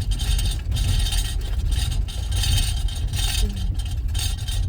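Minivan driving over a rough dirt road, heard from inside the cabin: a steady low rumble of tyres and engine, with uneven rattling and jostling noises from the bumpy surface.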